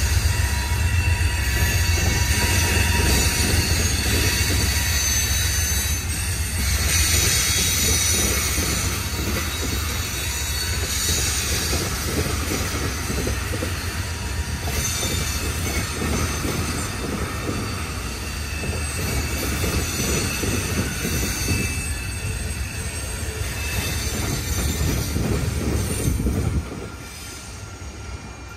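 Freight cars of a Norfolk Southern train rolling past over the rails: a steady rumble with high-pitched wheel squeal. The rumble drops off sharply near the end.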